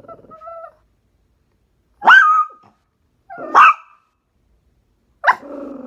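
Shih Tzu barking loudly in short single barks: two about a second and a half apart, then a third near the end. These are alert barks at something outside the window.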